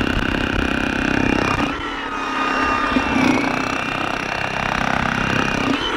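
Hilti electric demolition hammer running, its point hammering rapidly into bedrock, with a steady motor whine; it eases briefly about two seconds in.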